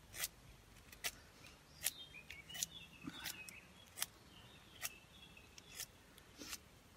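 Schrade SCHF36 bushcraft knife shaving a wooden stick in repeated strokes, each a short sharp slicing scrape, about nine in all at a steady pace of a little more than one a second.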